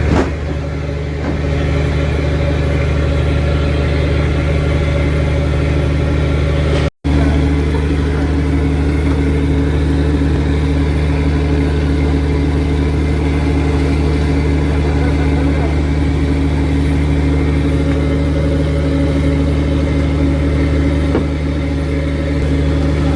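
Mechanised fishing boat's engine running steadily with a constant low drone, dropping out for an instant about seven seconds in.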